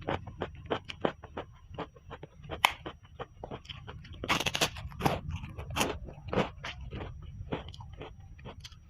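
Close-miked mukbang eating of ayam rica-rica (spicy chicken): irregular crunching, biting and chewing with many short crackles, and a longer, louder crunch about four and a half seconds in.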